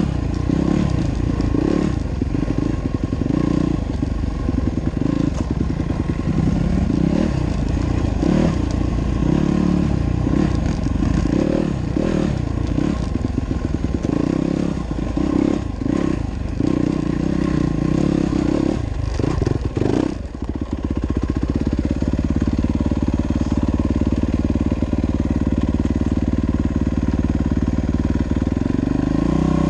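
Yamaha dirt bike engine running close by, its revs rising and falling unevenly with throttle changes, mixed with knocks and clatter from riding over rocks. About two-thirds of the way through, the engine settles into a steady, even note.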